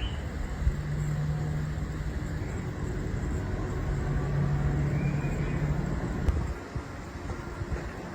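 Low, steady motor rumble with a hum, easing off about six and a half seconds in.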